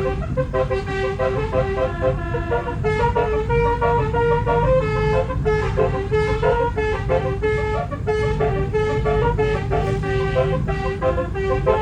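Twelve-trumpet telolet basuri air horn playing a quick melody, its notes stepping up and down several times a second over a steady low rumble.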